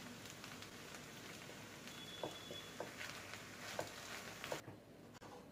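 Faint sizzle of stir-fried noodles in a non-stick pan, with several short scrapes and taps of a wooden spatula stirring them from about two seconds in. The sizzle cuts off near the end.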